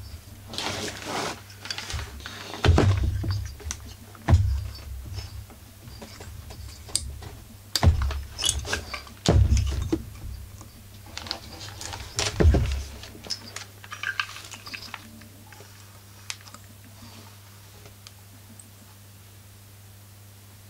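Husqvarna 44 chainsaw's housing and ignition coil being handled with gloved hands: irregular clicks, rattles and a few heavier knocks over the first dozen seconds or so, then only faint scraping over a low steady hum.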